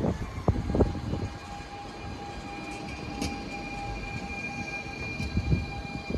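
DSB Litra SA S-train with a steady electric whine of several level tones over a low rumble, with a few clunks in the first second.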